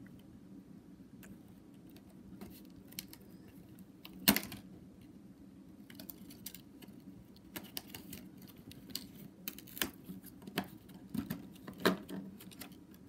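A cardboard advent calendar door being pried open and a small toy worked out of the plastic tray behind it: scattered clicks, taps and crinkles, with one sharp snap about four seconds in and a busier run of clicks in the second half.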